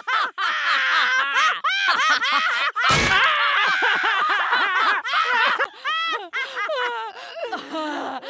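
Cartoon women's voices laughing loudly and hysterically in rapid repeated bursts, with a single sharp crack about three seconds in. A lower-pitched voice takes over near the end.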